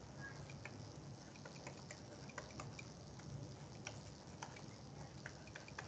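Faint, irregular light clicks and taps of a stylus writing on a tablet, over a low steady hum.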